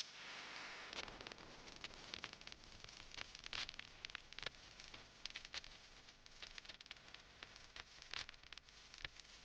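Faint, irregular small clicks and scratches of tools and small parts being handled during a smartwatch repair, with a soft hiss for about the first second.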